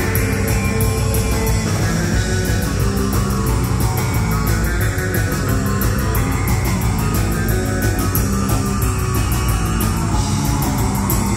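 Live horror surf rock band playing loud and steady: electric guitar, bass guitar and drums.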